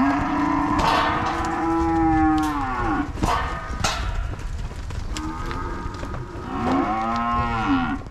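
Cattle mooing in a stockyard: one long moo for about the first three seconds, falling in pitch as it ends, then overlapping moos from about five seconds in. A few sharp knocks sound between the calls.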